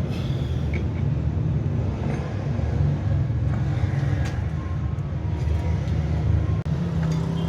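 A motor running with a steady low hum, with a few faint light ticks.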